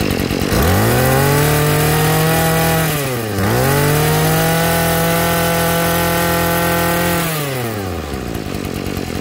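Tanaka 22cc two-stroke brush cutter engine on a test run: idling, then revved up and held at high speed, dipping once briefly before being revved again, and falling back to a rough idle near the end.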